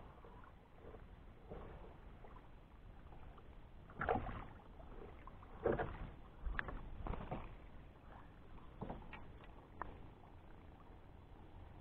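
Small splashes and knocks at the side of a plastic fishing kayak as a small bass is brought alongside and taken by hand. They come as a few irregular splashes and thumps, the loudest about four to seven seconds in, over faint water lapping.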